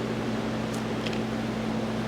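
Steady mechanical hum, with a couple of faint light clicks near the middle.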